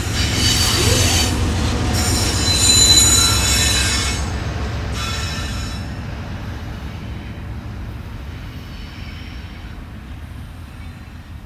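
Freight train rolling past on a curve: steel wheels squealing over a steady low rumble of the cars and a Union Pacific diesel locomotive. The squeal is loudest about three seconds in, then the sound fades as the train moves away.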